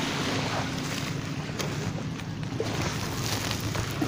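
Steady wind noise on the microphone over surf, with a few faint scattered clicks.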